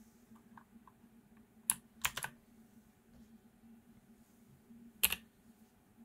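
Clicky mechanical key switches on a Thunderobot KC3068 keyboard being pressed a few times: one press about a second and a half in, a quick run of three just after, and a close pair about five seconds in, while the keys are used to switch the backlight effect.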